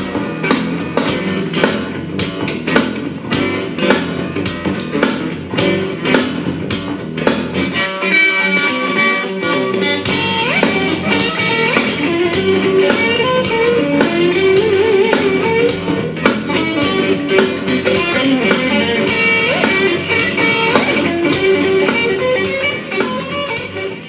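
Guitar-led music with electric guitar, bass and drums playing through Bose Panaray 802 Series III loudspeakers. A steady drum beat runs until about eight seconds in, when the drums and bass drop out for about two seconds before coming back.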